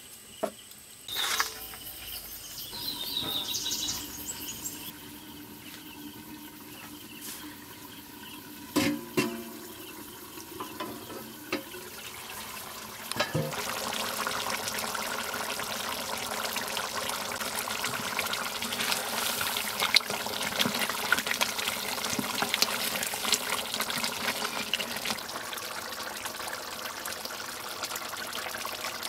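Thick mutton curry bubbling and sputtering in a kadai over a wood fire. A few sharp metal clinks come in the first ten seconds, then the dense bubbling starts louder about 13 seconds in and carries on steadily.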